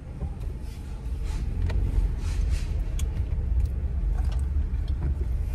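A car's low engine and road rumble heard from inside the cabin as it pulls forward, growing stronger about a second in.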